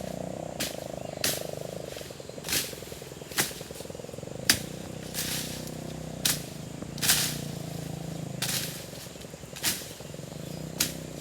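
Repeated short, sharp strikes, about one a second at uneven spacing, over a steady low hum.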